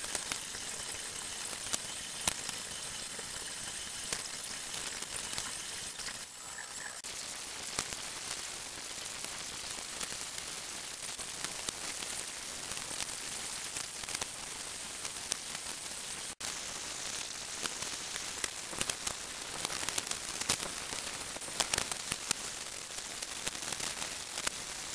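Steady hiss with frequent small clicks and crackles: the sped-up working sounds of a craft knife cutting a Depron foam sheet along a metal straight edge.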